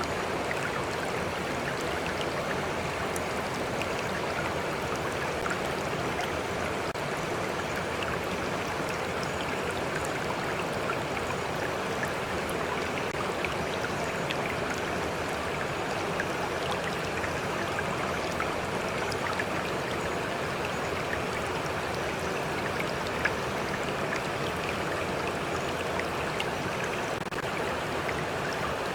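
Stream flowing steadily, a continuous rush of running water with small faint splashes and drips scattered through it.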